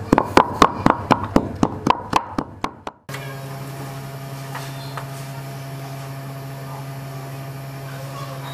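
Stone pestle pounding wet chilli paste in a wooden mortar, quick even knocks about five a second that fade over about three seconds and then stop abruptly. After that only a steady low hum is left.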